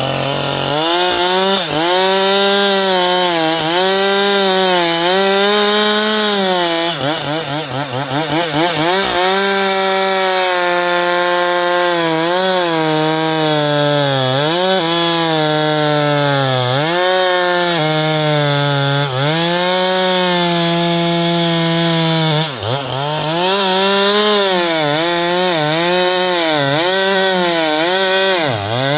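Stihl MS 462 two-stroke chainsaw running at high revs while cutting wood, its pitch repeatedly sagging under load and climbing back, with a couple of deeper bogs.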